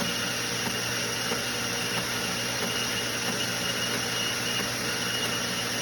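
Motorized treadmill running steadily: a continuous motor and belt noise with a thin, steady high whine.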